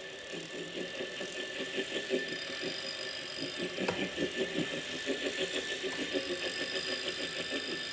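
Wahoo Kickr Core smart bike trainer running with a rhythmic, pulsing grinding noise and a steady thin whine. A higher whine comes in about two seconds in, drops out near the four-second mark and returns about six seconds in. The noise comes from a bad bearing, which the owner cured by replacing it.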